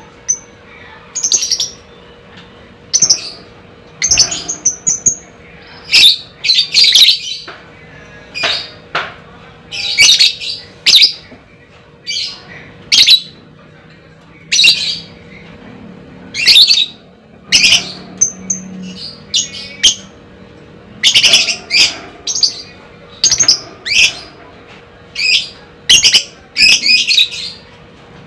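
Lovebird calling: a run of short, shrill screeching and chattering calls, about one a second, some in quick doubles and triples, over a faint steady hum.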